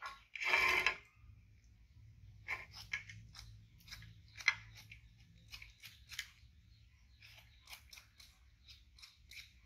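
Small knife cutting and scraping the peel off a firm fruit: many short, irregular crisp cuts and scrapes, with a louder rustle about half a second in.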